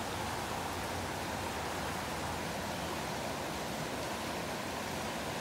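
Big Thompson River rushing steadily over shallow riffles, a constant even hiss of flowing water.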